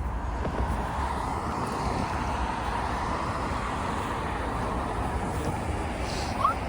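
Steady road and engine noise of a car driving, a constant low rumble with a hiss on top. There is a brief short chirp near the end.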